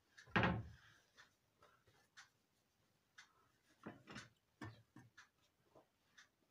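Kitchen handling sounds as towels are wrapped and pressed around a pot on a stove: a dull thump about half a second in, then softer knocks and cloth rustles around four to five seconds in. Under this, a faint tick repeats about once a second, like a clock.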